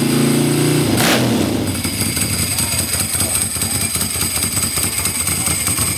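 Ducati 900SS air-cooled 90° V-twin running through an open aftermarket exhaust. It is held at raised revs, drops back about a second in, then settles into a fast, pulsing idle.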